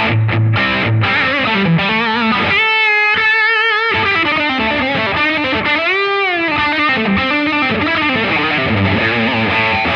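Electric guitar played through a Laney Lionheart Foundry combo amp, its tone control just turned up a notch for more treble. Chords open the phrase, then a held note with wide vibrato around three seconds in, a note bent up and back down near the six-second mark, and more lead phrases before closing chords.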